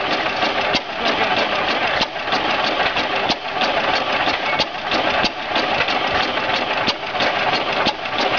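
5 HP Hercules hit-and-miss engine running, firing with a sharp exhaust pop every half to two-thirds of a second and skipping a beat now and then as it coasts between power strokes.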